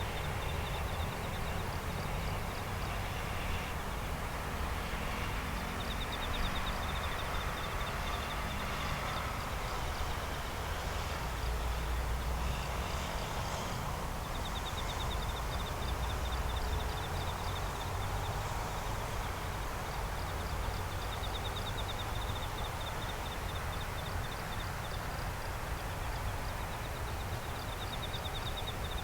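Night insects trilling in fast, even pulses that come and go, over a steady low rumble.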